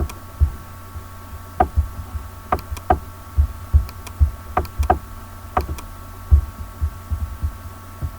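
Computer mouse clicking a dozen or so times at an uneven pace, with dull low knocks from the desk or microphone and a steady electrical hum underneath.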